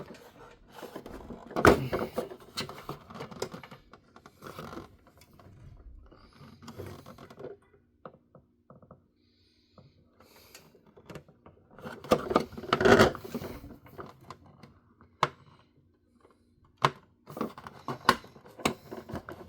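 Clicks, taps and light rattles of a plastic toy Batmobile and a small screw being handled while someone tries to drive the screw in, with busier bursts of handling about two seconds in and again about twelve seconds in.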